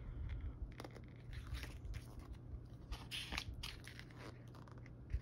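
Pages of a photobook being turned and handled: a few short papery rustles and swishes, over a low steady hum.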